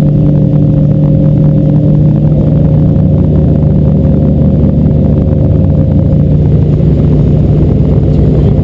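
Small boat's motor running steadily at cruising speed, a loud even drone.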